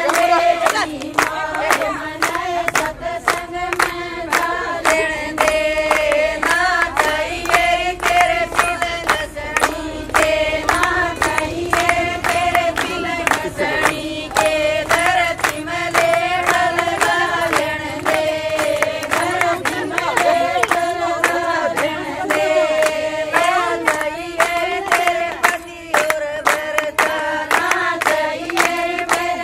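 A group of women singing a Haryanvi folk song together, keeping time with steady, regular hand clapping.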